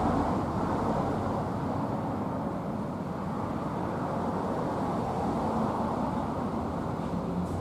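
Steady low rumble of outdoor background noise, with no distinct events and no bird calls.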